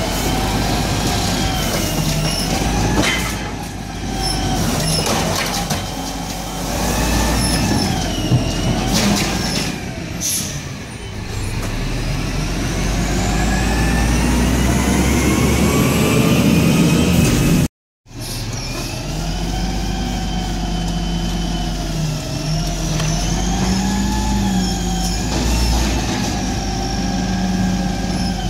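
Peterbilt 320 garbage truck with an Amrep Octo side-loader body: the diesel engine running under load with a few short air-brake hisses in the first half, then a long rising engine note as the truck pulls away, followed by steady running as it drives off. The sound drops out for an instant about two-thirds of the way through.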